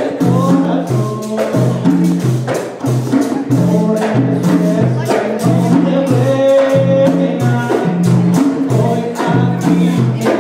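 Live Puerto Rican hand-drum music: handheld frame drums (panderos) beating a steady rhythm of alternating low and higher strokes, with other hand percussion and voices singing over it, in a traditional bomba style.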